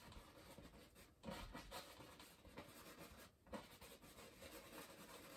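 Faint scratchy brushing of a fan brush's bristles working white oil paint onto canvas in small circular strokes, broken by short pauses.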